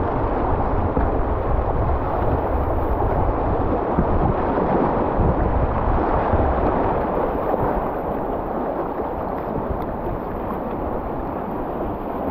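Whitewater rapids rushing steadily around a kayak running down the river, heard from on board with paddle strokes in the water.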